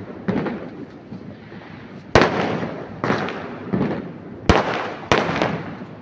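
Fireworks going off in a run of about six sharp bangs, each followed by a rolling echo. The loudest comes about two seconds in, and two more come close together near the end.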